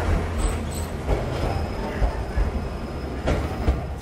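Choshi Electric Railway train heard from inside the cab as it pulls alongside a station platform: a low rumble of wheels on the rails, a faint thin squeal for about two seconds in the middle, and a couple of sharp knocks near the end.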